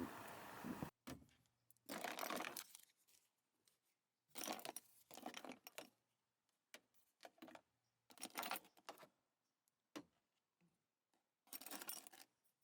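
Faint, brief rustling and clinking handling noises, five or six short bursts separated by near silence.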